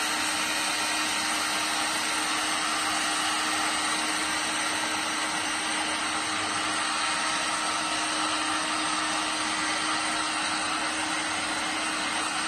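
Electric heat gun running with a steady blowing whir and a faint hum, shrinking heat-shrink tubing onto a cable plug.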